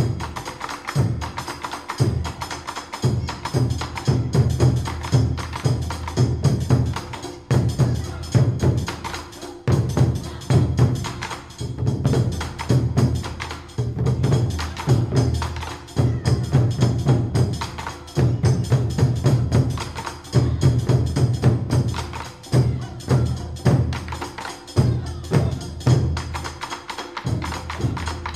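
Background music with a steady percussive beat of sharp, clicky strokes.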